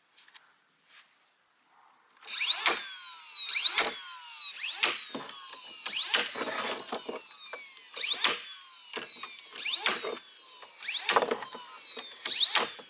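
Hammer blows driving nails into wooden wall-frame studs, about nine strikes roughly a second apart, each with a short ringing of the nail, starting about two seconds in.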